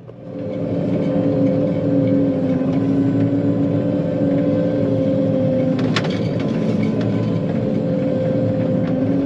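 John Deere 9500 combine's diesel engine running steadily, with a constant tone over a low rumble and one sharp click about six seconds in.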